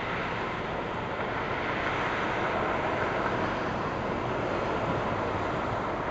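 Steady road traffic noise from vehicles on the street, a little louder from about two seconds in.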